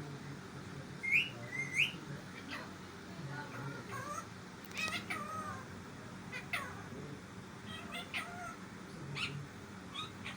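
Pet parrot calling: a string of short chirps and whistle-like squawks, with two quick rising chirps about a second in and more calls scattered through.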